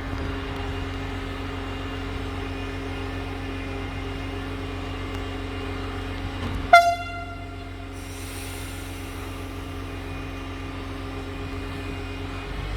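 DPKr3 diesel multiple unit running with a steady hum, then one short, very loud blast of its typhon horn a little past the middle.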